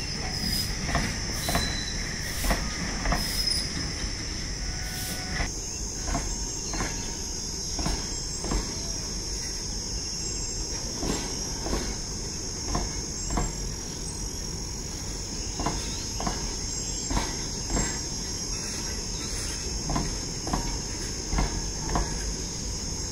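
Loaded covered goods wagons of a freight train rolling past, their wheels knocking over rail joints at irregular intervals of about a second over a low rumble. A steady high-pitched tone runs along with them.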